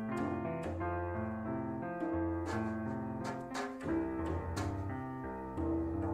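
Instrumental background music led by piano, sustained chords changing every second or so with a few struck notes.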